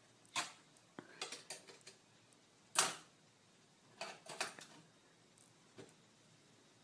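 Makeup items clicking and clattering against the metal-mesh trays of a vanity drawer as a toddler's hands rummage through them, in scattered light knocks with the loudest a little under three seconds in.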